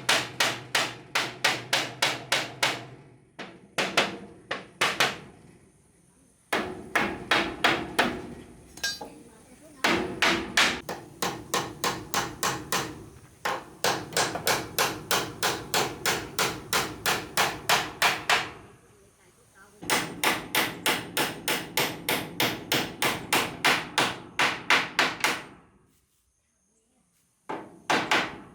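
Hammer driving nails into wood: steady blows about three a second, in runs of several seconds broken by short pauses.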